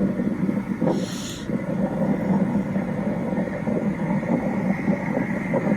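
River tour boat's motor running with a steady hum, with a short hiss about a second in.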